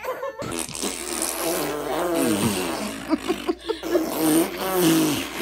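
A baby and an older child vocalizing back and forth with buzzy, pursed-lip noises and short gliding grunts, copying each other.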